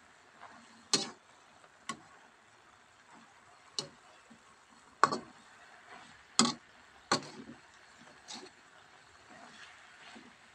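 Metal spatula clinking and scraping against a wok during stir-frying: about seven sharp, irregularly spaced clanks a second or so apart, over a faint background hiss.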